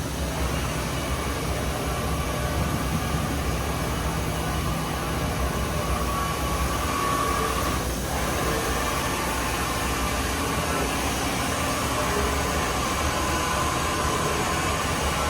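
Quantum QV5-3000 5-axis CNC vertical machining center running: a steady machine hum with a whine that swells and fades, broken briefly about eight seconds in.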